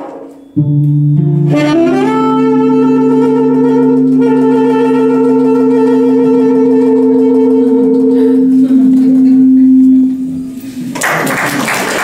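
Tenor saxophone slides up into one long held closing note, over jazz guitar accompaniment, ending the tune about ten seconds in. Applause starts near the end.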